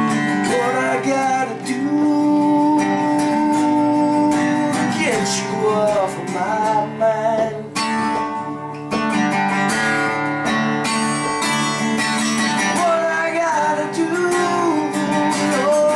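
Acoustic guitar strummed, with a man singing along.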